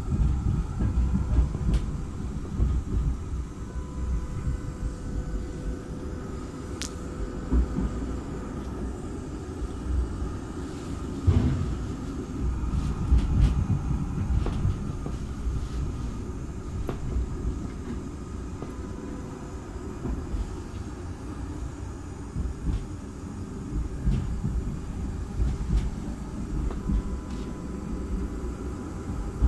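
Oslo tram running on rails, heard from inside the car: a steady low rumble of wheels on track with a faint steady whine, broken now and then by short knocks and clicks.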